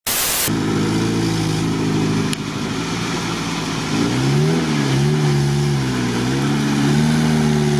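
Suzuki Samurai's engine running steadily, then revved up and down again and again from about halfway while the 4x4 pushes through a water crossing. A short hiss is heard at the very start.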